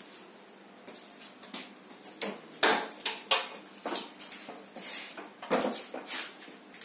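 A series of irregular sharp clicks and light clattering knocks, the loudest about two and a half seconds in and again about five and a half seconds in.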